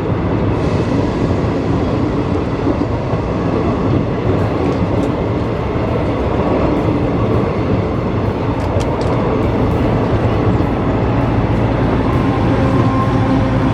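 Train running past at close range: a loud, steady rumble with faint ticks from the wheels on the rails in the middle.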